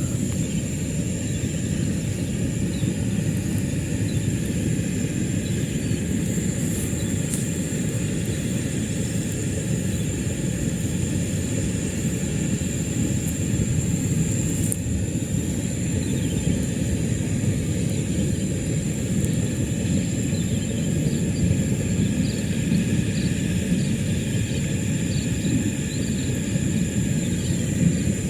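Steady low rumbling noise with a thin, steady high whine above it and a few faint chirps in the second half.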